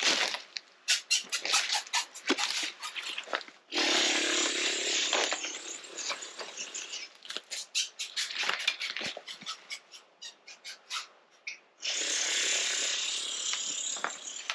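Someone pushing through a dense thicket of small trees: twigs snapping and crackling, with two longer stretches of branches scraping and rustling along clothing, one about four seconds in lasting some three seconds and one near the end.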